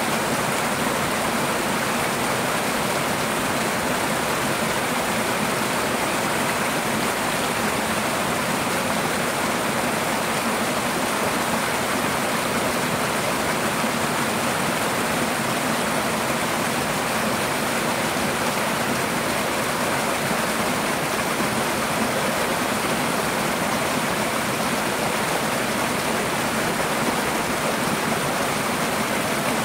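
Two small waterfalls pouring over rocks into a shallow pool: a steady, unbroken rush of splashing water.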